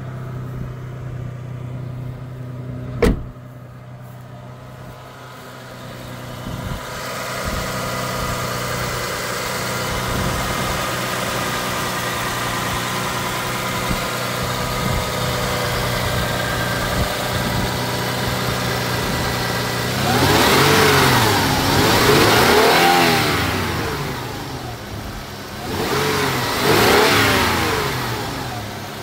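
Rebuilt Toyota 3.4-litre V6 (5VZ-FE) in a 1999 Tacoma idling steadily, then revved by hand at the throttle linkage in quick blips that rise and fall in pitch, about twenty seconds in and again near the end. A single sharp knock about three seconds in.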